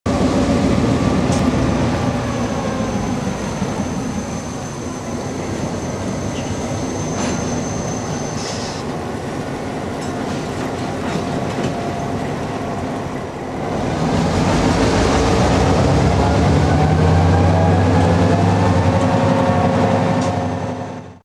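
EMD GP7 diesel-electric locomotive with its 16-cylinder 567 two-stroke diesel engine running, with a thin high squeal over roughly the first eight seconds. About fourteen seconds in the engine grows louder and its note rises, then the sound fades out quickly at the end.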